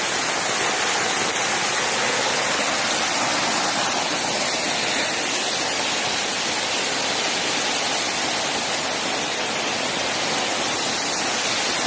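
Waterfall pouring, a steady rush of falling water.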